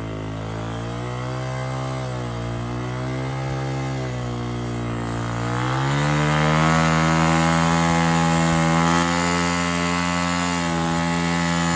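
Yamaha dirt bike engine running under load as it churns through deep snow, its revs steady at first, then rising to a higher, louder pitch about six seconds in and holding there.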